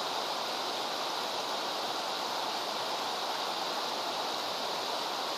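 Steady rushing of a shallow, fast river running over stones and riffles, an even hiss without breaks.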